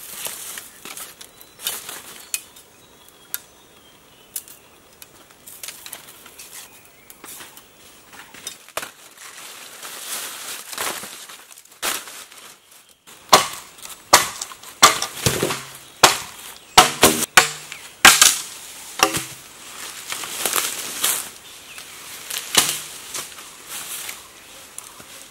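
Bamboo being worked with a machete among dry bamboo leaves: light scraping and scattered clicks as thin strips are split from the pole, then, about halfway through, a run of loud, sharp chopping knocks and cracks.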